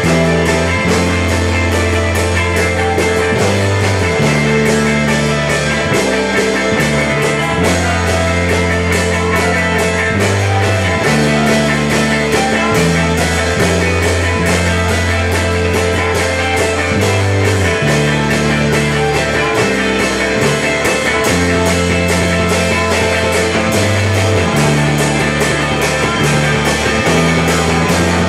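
Live rock band playing: electric guitars and drum kit with a steady beat over a low line that changes note every second or two.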